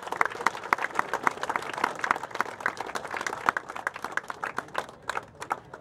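A small crowd clapping, the separate hand claps distinct, thinning out and dying away about five seconds in.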